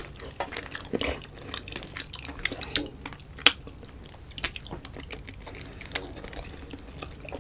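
Close-miked wet chewing and mouth smacking of a person eating, a run of small moist clicks with a few sharper smacks.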